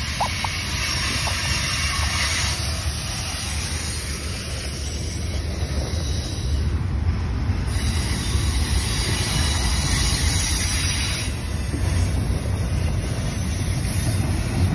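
A freight train's cars rolling past close by: a steady, loud rumble of steel wheels on the rails.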